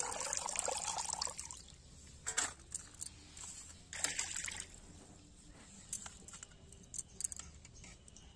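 Water streaming and dripping back into a steel pan as a handful of washed small prawns is lifted out, for about the first second and a half. Shorter water sounds follow about two and four seconds in.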